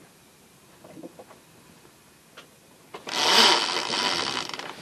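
Sheet winch on a sailing yacht ratcheting in a fast, loud run of clicks for about two seconds from near the end, as the jib sheet is hauled in after a tack. Before that, only a few faint clicks.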